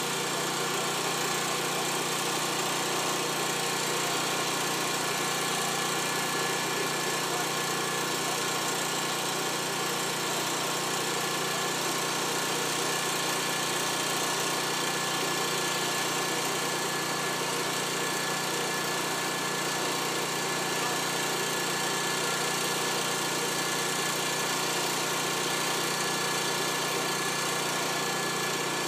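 Fire truck engine running steadily, an unchanging mechanical drone with a faint steady whine over it.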